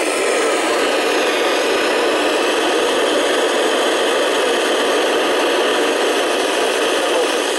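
FM radio static: a steady, loud hiss from an amateur radio transceiver's speaker, tuned to the ISS downlink on 145.800 MHz, with no voice getting through.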